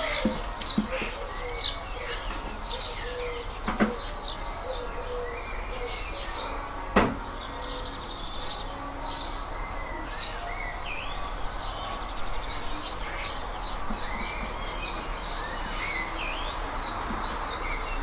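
Songbirds chirping and calling throughout, many short repeated chirps, over a steady background hiss. A few sharp clicks cut through, the loudest about seven seconds in.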